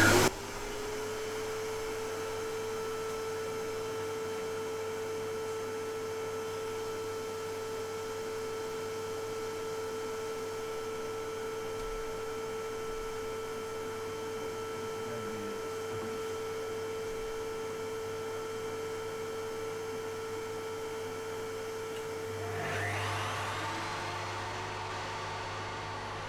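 Evolution R255 table saw running: the motor winds up to speed within the first second, then runs at a steady pitch with a constant whine. About 22 seconds in, the note drops slightly and the sound gets a little louder.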